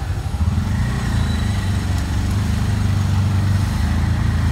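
Auto-rickshaw engine running steadily as it rides through traffic, heard from inside the open cab, growing louder about half a second in.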